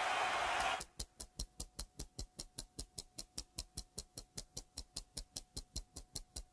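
A murmuring audience hubbub that cuts off abruptly under a second in. It is replaced by a rapid, perfectly even clicking, about five clicks a second, over a faint steady tone, which sounds like a tape or recording glitch rather than anything in the hall.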